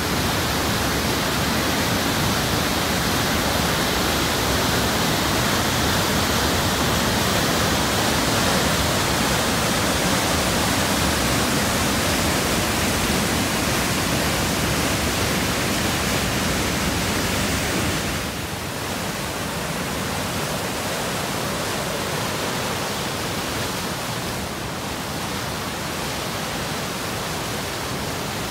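Glacial meltwater creek rushing through a narrow rock canyon in whitewater rapids: a loud, steady roar of water, a little quieter from about eighteen seconds in.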